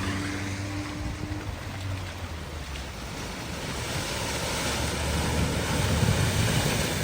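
A vehicle driving through floodwater at a ford: its engine hum fades over the first couple of seconds, over a steady rush of splashing water, and a low rumble builds near the end.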